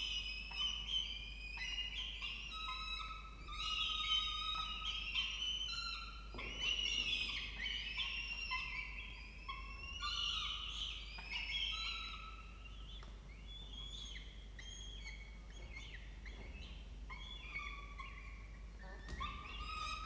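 Peregrine falcon chicks giving overlapping, high-pitched begging calls while being fed, easing off in the second half.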